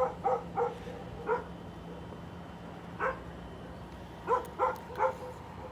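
A dog barking in short, separate barks: a quick run of four, a single bark about three seconds in, then three more close together near the end.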